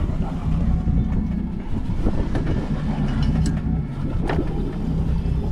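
A boat's engine running steadily, with wind buffeting the microphone and a couple of sharp knocks about two and four seconds in.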